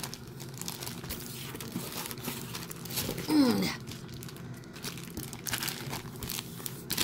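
Clear plastic bags crinkling and rustling as hands handle bagged pins and patches. About halfway through there is a short falling hum from a voice.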